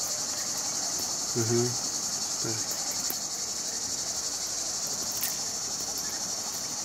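Insects chirring in a steady, high-pitched drone, with a short voiced murmur about a second and a half in.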